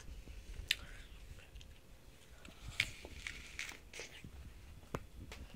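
Handling noise of a phone being moved about: faint rustling and small clicks, with three sharper clicks just under a second, about three seconds and about five seconds in.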